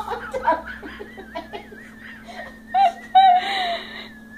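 People laughing at the dogs, with high-pitched squealing laughs breaking out loudly about three seconds in.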